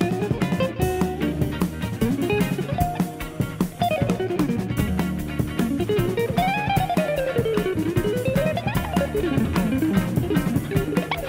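Instrumental blues-funk music: a guitar plays quick melodic runs up and down over bass and drums.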